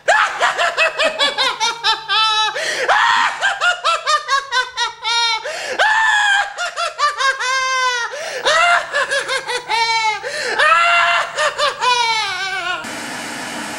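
A person laughing loudly and at length, in high-pitched runs of "ha-ha" syllables that fall in pitch, breaking off a second before the end.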